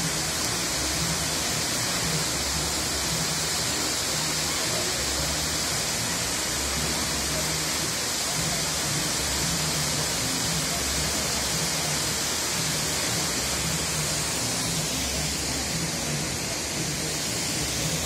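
Waterfall's steady rush, water cascading down a steep rock face, an even hiss with no breaks.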